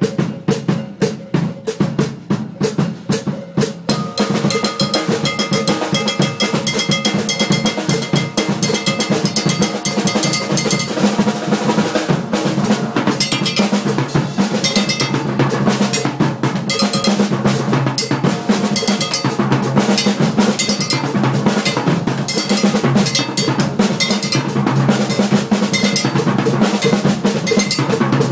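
Dot-matrix printer print head clattering rapidly as it prints, a continuous fast rattle of impacts over a steady hum. The strokes are more spaced out at first and run into an even, denser rattle after about four seconds.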